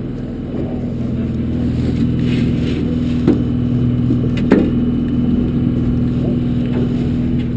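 Party boat's engine running with a steady low hum. A sharp knock comes a little past three seconds in, and another about a second later.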